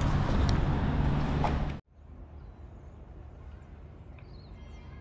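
Loud street noise with a steady low hum, which cuts off abruptly less than two seconds in; then quiet outdoor background with faint bird chirps.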